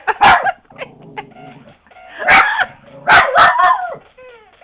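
Lhasa Apso puppy barking excitedly in several sharp barks, with a few quick falling whines near the end.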